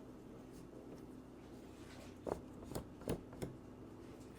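Small clicks and knocks from the front standard of a Cambo 4×5 monorail view camera being shifted by hand: about four in quick succession a little over two seconds in, over a faint steady hum.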